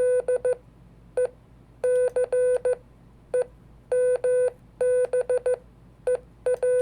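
Morse code (CW) sending: a single-pitched beep keyed in quick dots and longer dashes, in separate letter groups, spelling out the name of a month.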